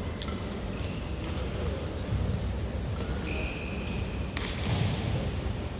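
Badminton rally: a few sharp cracks of racket strings striking the shuttlecock, with a short squeal of court shoes on the floor between hits.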